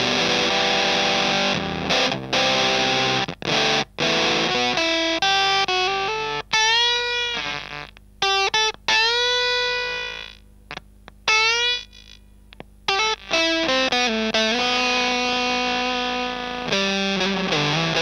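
Electric guitar played through a Tonebender MkII clone fuzz pedal set to a starved low-gain fuzz, bias and attack at minimum: chords and single notes with a couple of string bends around the middle. Several notes cut off abruptly into short gaps.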